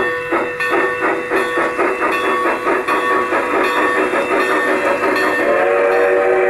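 Sound system of a PIKO G-scale Denver & Rio Grande mogul model steam locomotive getting under way: steady chuffing about four beats a second with the bell ringing, then the steam whistle blows from about five and a half seconds in.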